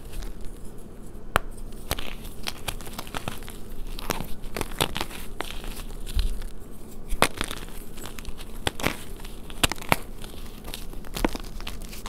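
Reformed gym chalk being crushed and crumbled by hand: dry crunching and crackling with many sharp, irregular snaps as chunks break apart in loose powder.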